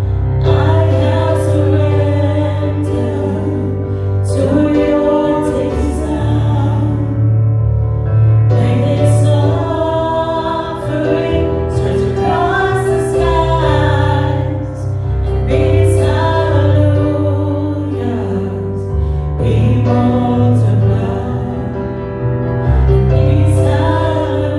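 A worship song with singing over a steady instrumental accompaniment with a deep bass line.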